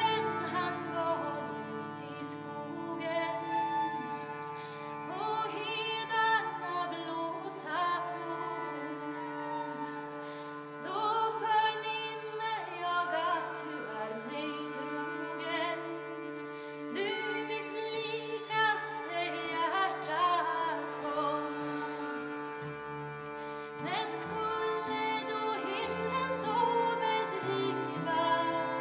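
A woman singing a Swedish traditional folk tune, accompanied by two violins, a harmonium holding steady drone notes, and a 12-string guitar.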